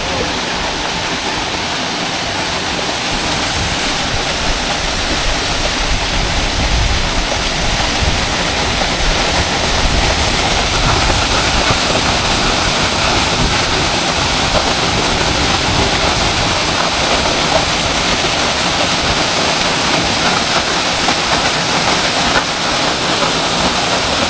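Waiau Falls waterfall rushing: a steady, even sound of falling water, with a deeper low rumble swelling for a few seconds near the middle.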